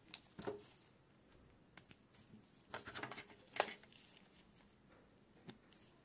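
Faint handling noise: small clicks and rustles as gloved hands turn over a plastic strip of DC barrel-plug adapter tips, with a cluster of rustling clicks in the middle, the sharpest click just after it, and one more small click near the end.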